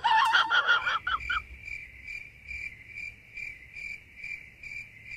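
Crickets chirping in a steady rhythm: a high chirp repeated about twice a second at the same pitch. This is the comic 'crickets' sound effect dropped in after a joke. In the first second a short, louder burst of other shifting sound comes before it.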